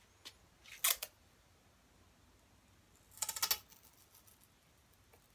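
Adhesive tape pulled off the roll in two short crackling rips, one about a second in and a longer one about three seconds in.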